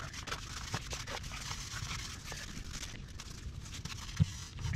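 Irregular soft knocks, pats and scrapes of hydraulic cement being pressed and packed into a crack in a pool wall by hand, with one sharper knock near the end, over a steady low rumble.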